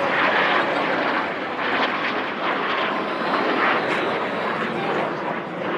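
A fixed-wing aircraft's engines running in flight: a steady, loud rushing noise.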